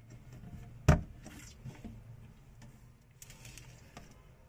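A single sharp click about a second in, followed by faint tapping and rustling of handling.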